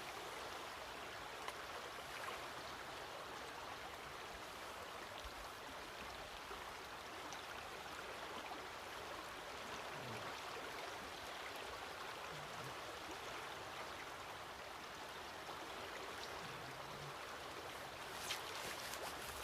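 River water running steadily, an even rushing wash of current with no rhythm, and a couple of small clicks near the end.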